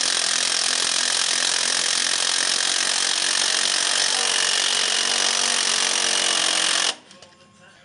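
Handheld power wrench running continuously with a socket on a long extension, spinning a bolt on a car's front lower control arm; it runs for about seven seconds and cuts off abruptly.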